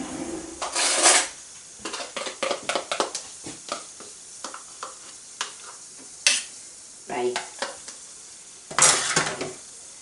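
A teaspoon scraping and clinking against a Thermomix's stainless-steel mixing bowl as soft margarine is spooned in. It makes a run of light taps and clinks, with two longer scrapes, one about a second in and one near the end.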